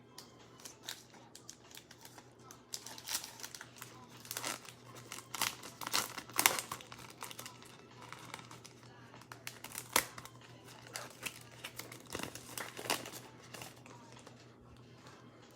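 Trading-card pack wrapper being torn open and crinkled by hand. It makes irregular crackles and snaps, the sharpest about six and ten seconds in.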